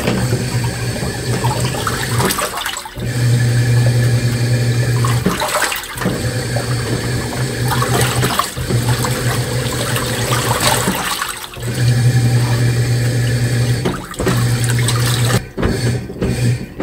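Washing machine in its wash cycle: the drum motor hums while water and laundry slosh, with the motor stopping briefly and reversing about every three seconds. Near the end it switches to short, choppy strokes.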